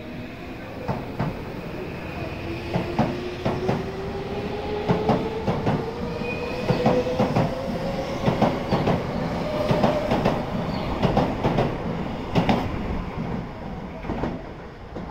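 Tobu 70000 series electric train pulling out and accelerating. Its traction motors give a whine that rises steadily in pitch, and its wheels clack over the rail joints faster and faster. It fades near the end as the train draws away.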